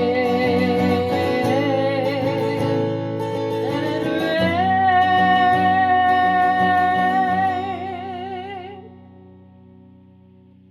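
Acoustic guitar accompanying a singer who holds long notes with a wavering vibrato. The voice and guitar die away about nine seconds in, and the guitar strumming starts again right at the end.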